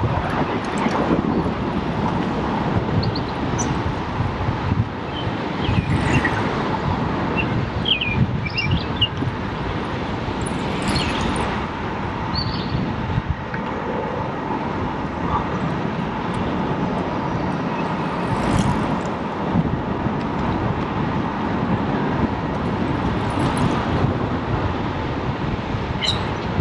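Steady wind and rolling road noise on a GoPro's microphone while riding a bicycle, with a few brief high chirps now and then.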